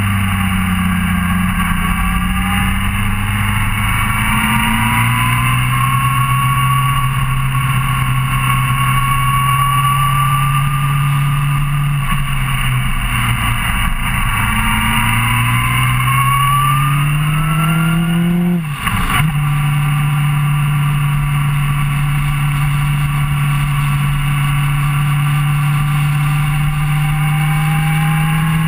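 Suzuki GSR600 inline-four motorcycle engine running under way, its revs rising and falling gently with a steady rush of wind. About two-thirds of the way in the revs climb, then drop sharply with a brief dip at a gear change, before settling back to a steady note.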